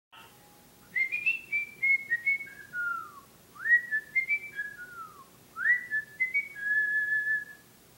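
A tune whistled in three similar phrases, each opening with an upward swoop and then stepping down in pitch, the last ending on a long held note.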